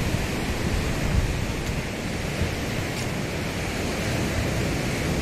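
Steady surf of sea waves breaking on the shore, with wind rumbling on the microphone.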